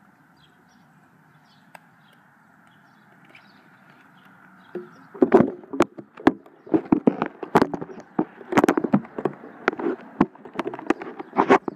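Faint steady background noise, then from about five seconds in a run of irregular loud knocks and rubbing close to the microphone as the phone is handled against the bicycle frame.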